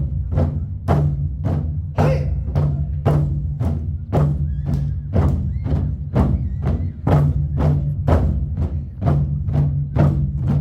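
An ensemble of Korean barrel drums (buk) beaten with sticks in a steady, driving rhythm of about two strokes a second, with a low, ringing drum resonance under the sharp stick hits.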